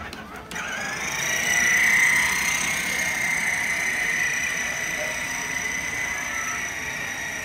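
Electric ride-on toy motorcycle's motor and gearbox whining steadily as it drives, coming on about half a second in.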